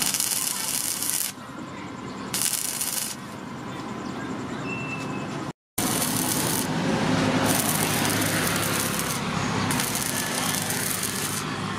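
Stick arc welding on steel: the electrode's arc crackling and spitting, the hiss swelling and easing in stretches of a second or two as the rod is run. The sound breaks off for an instant a little before halfway.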